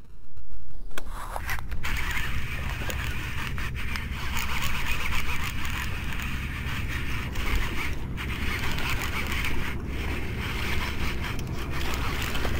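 Wind blowing across the microphone: a steady rumble with an even rushing hiss, briefly dipping a couple of times.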